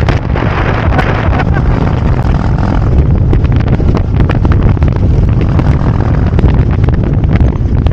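Heavy wind buffeting on the microphone from riding a Harley-Davidson Road Glide at road speed, with its V-twin engine running underneath.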